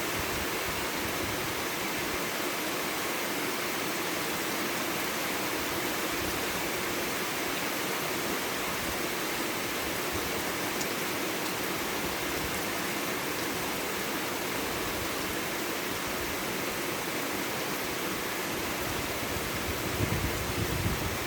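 Steady rainfall, an even hiss with no breaks. A low rumble comes in about a second before the end.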